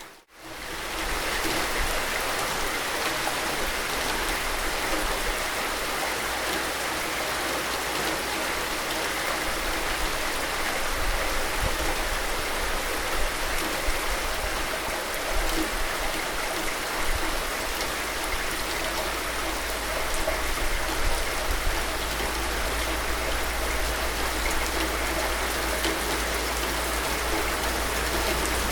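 Steady rain falling, an even hiss of drops. It dips almost to silence right at the start and swells back within about a second, like a join between loops of the recording.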